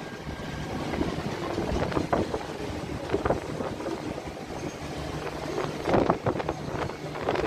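Wind buffeting the phone's microphone in an open Ferris wheel gondola: a low rumbling noise with louder gusts about two and six seconds in.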